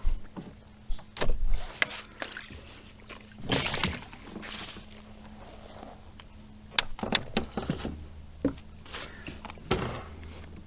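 Irregular knocks, clicks and short scuffing noises of gear being handled in a kayak, with a longer rustling burst about three and a half seconds in.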